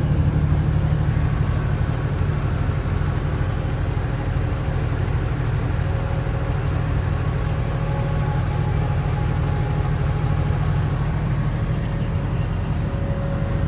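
Semi truck driving at steady speed, heard from inside the cab: a steady low engine and road drone.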